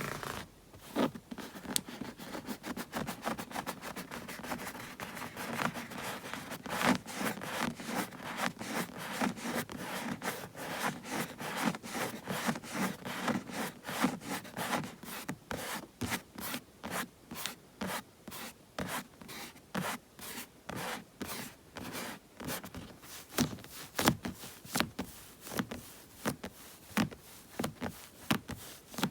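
Bare palms rubbing together and rustling close to the microphone in quick, repeated strokes. In the last several seconds the strokes become sparser and sharper.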